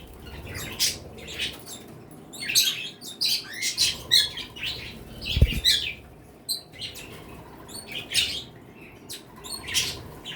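A mixed flock of small pet birds, parakeets, cockatiels and other species, chirping and calling in quick, overlapping short notes, with one soft low thump a little past halfway.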